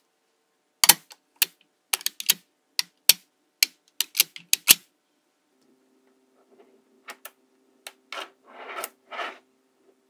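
Small magnetic balls snapping together on a tabletop in a quick, irregular run of sharp clicks. After a pause come a few more clicks and softer scraping as a chain of balls is pushed and folded.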